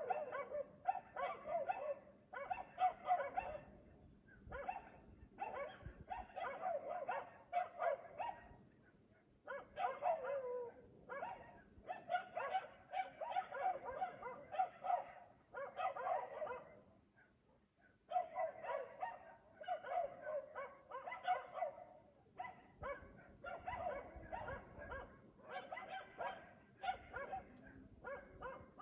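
A dog barking persistently in rapid strings of barks, several a second, in long bouts broken by short pauses.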